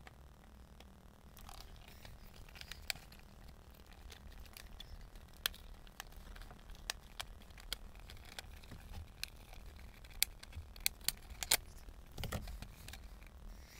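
Hand work on plastic dashboard trim and instrument-cluster parts: scattered sharp plastic clicks and light knocks, with a quick run of louder clicks about ten seconds in and a duller knock just after.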